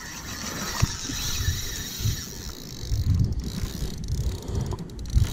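Spinning reel's drag ratcheting as a hooked fish pulls line off against it, with gusts of wind on the microphone.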